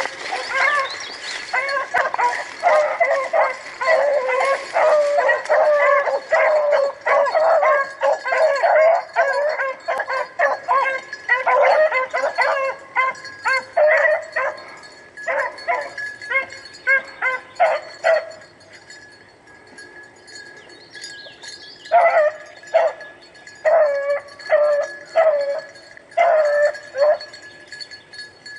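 Hunting hounds barking and baying in fast runs, the cry of dogs on a rabbit's trail. The calls break off about 18 seconds in and come back in a few short bursts a few seconds later.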